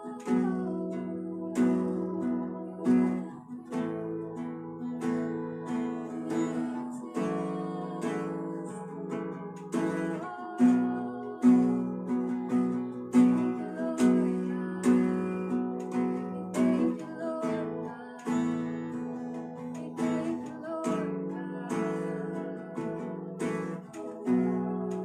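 Acoustic guitar strummed slowly and steadily, ringing chords as the accompaniment to a worship song.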